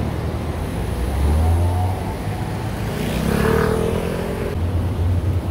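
City road traffic: cars and a small truck passing close by, engine and tyre noise over a steady low rumble.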